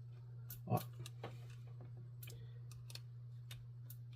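Steady low electrical hum with scattered faint clicks and a soft knock about three quarters of a second in, as of small handling sounds at a workbench.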